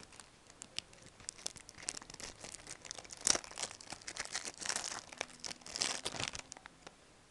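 Plastic wrapping of a Yu-Gi-Oh! starter deck crinkling and tearing as it is unwrapped by hand: irregular short rustles and clicks, with a few louder crackles in the middle.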